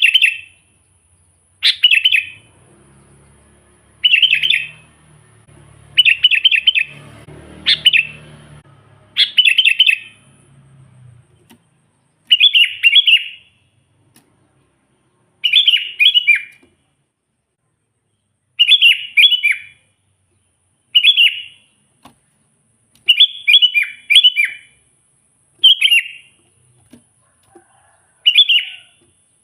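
Sooty-headed bulbul singing: short, loud, bubbly phrases repeated about every two seconds.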